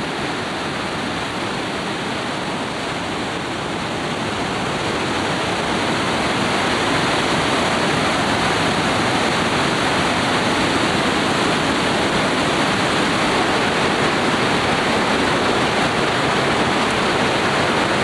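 Trümmelbach Falls, glacial meltwater plunging and rushing through a narrow rock gorge inside the mountain: a loud, steady rush of water that grows louder about five seconds in.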